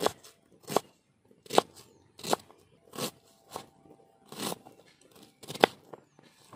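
Knife chopping a red onion on a wooden cutting board: a slow, steady run of sharp crunching chops, about one every three-quarters of a second, the last one loudest.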